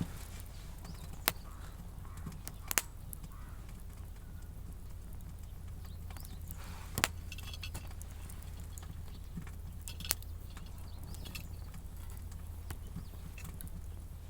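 A few separate sharp clicks and knocks, spaced irregularly, over a steady low hum.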